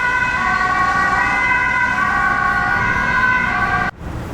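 Emergency vehicle's two-tone siren sounding, its pitch alternating between two notes, loud and steady, then cutting off abruptly near the end.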